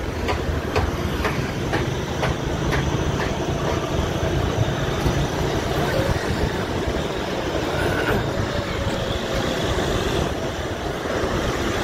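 Steady engine rumble and wind and road noise from a vehicle travelling along a paved highway, with a light ticking about twice a second during the first few seconds.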